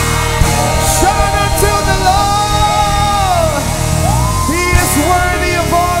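Live gospel worship song: lead and backing singers over a band with drum beats. One voice holds a long note that slides down about three and a half seconds in.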